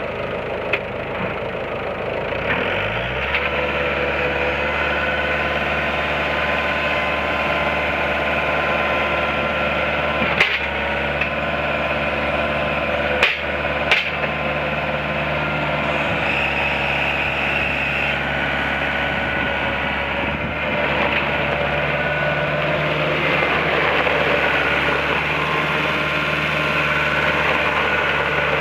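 Bobcat 873 skid steer's four-cylinder diesel engine coming up to speed about two to three seconds in, then running steadily. A few sharp clicks in the middle.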